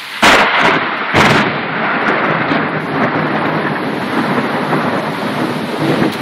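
Close thunderclap over heavy rain: a sudden sharp crack, a second crack about a second later, then loud rumbling for several seconds.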